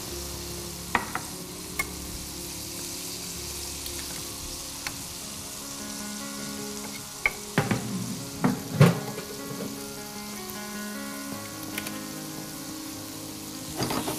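Chicken pieces frying in hot oil in a pan, a steady sizzle. Sharp clinks and knocks come through it, the loudest cluster about eight to nine seconds in.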